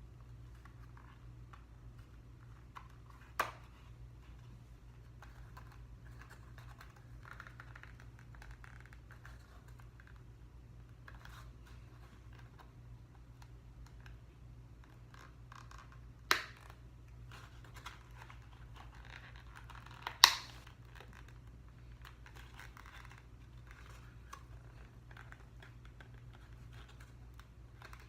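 Faint rustling and scratching as small plastic parts and packaging are handled, with three sharp clicks, about three seconds in, about sixteen seconds in and, loudest, about twenty seconds in, over a steady low hum.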